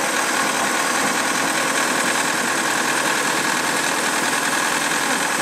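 Inline-four 3.0-litre carbureted marine engine idling steadily with its engine cover open. It is being run during winterizing to draw fuel stabilizer through the carburetor.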